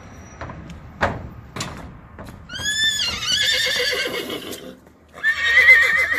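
A horse whinnies twice: one long, wavering call about two and a half seconds in and another starting about five seconds in. Before that, two sharp knocks sound about a second in.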